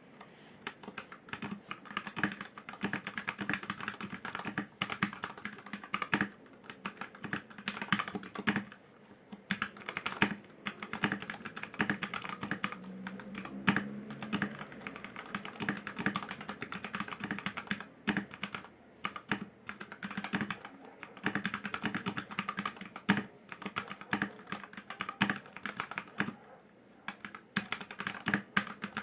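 Typing on a Tecware B68 mechanical keyboard with stock, unlubed Gateron Yellow linear switches: a fast, continuous run of keystroke clacks, broken by a few short pauses.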